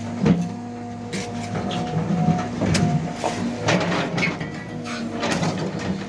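Excavator at work: its engine and hydraulics run with a steady hum while the steel bucket scrapes through dirt and knocks against rocks, with a loud knock about a third of a second in and several more clanks after.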